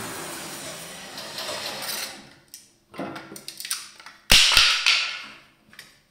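Bandsaw running with no load after finishing a circle cut, fading away over about the first two seconds as it winds down. Then a few light knocks of wood on the metal saw table, and about four seconds in a sharp knock followed by about a second of scraping as the cut wooden disc is handled.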